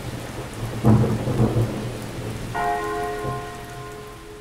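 Thunderstorm sound: low rumbling thunder over rain, with a loud rumble about a second in. A single bell-like chime rings out about two and a half seconds in, its higher tones dying away first, while the whole fades out.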